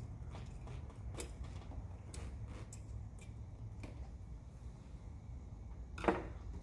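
Irregular light clicks and ticks of hand tools working the 10 mm intake manifold bolts on a Chevy 5.3 L LS V8, with one louder knock about six seconds in.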